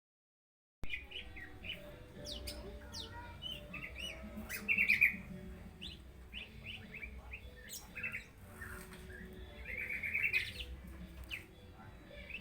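A songbird, most likely a caged one set out in the sun, chirping in short repeated notes, with two bursts of fast rattling trills, one about five seconds in and one near ten seconds.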